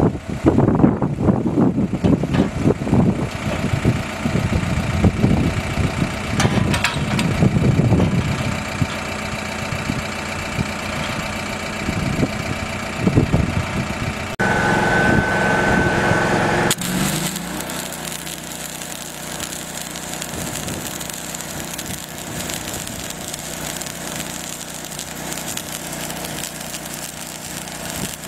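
An engine running unevenly with knocks and handling noise, then about two-thirds of the way through an abrupt change to the steady crackling hiss of a welding arc.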